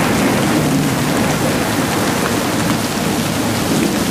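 Recorded rain-and-thunder soundscape played by a desktop rain screensaver program: steady heavy rain with a low rumble of thunder underneath.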